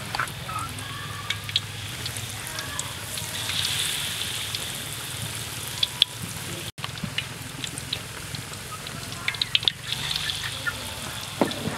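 Battered frog pieces deep-frying in a wok of hot oil: the oil sizzles steadily with scattered pops and crackles, with a very brief break about two-thirds of the way through.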